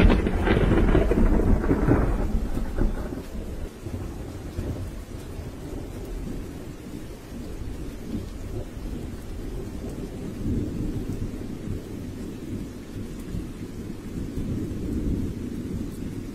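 A loud clap of thunder right at the start, rolling away over about three seconds, then a steady low rush of storm noise.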